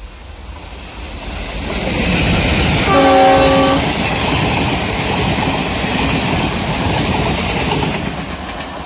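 Express passenger train approaching at high speed. Its locomotive horn sounds once for about a second, about three seconds in, and the rush and clatter of wheels on rail swells and stays loud as the train runs through.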